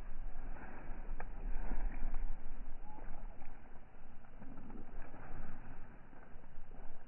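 Low rumble of wind buffeting the phone's microphone outdoors, strongest about two seconds in, with a few faint clicks.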